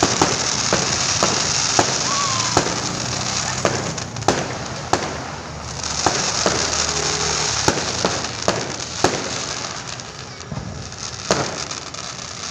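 Fireworks going off: a dense crackling hiss with many sharp bangs and pops at irregular intervals, roughly one or two a second. The hiss drops off briefly around the middle and thins out near the end.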